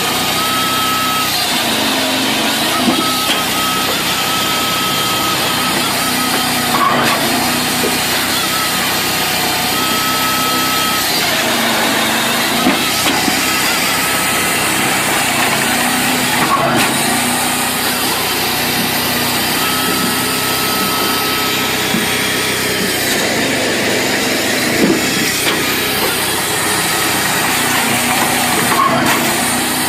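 Firewood processor running: steady engine and machine noise, with a whine that comes and goes and a sharp knock every few seconds as the machine cycles through logs.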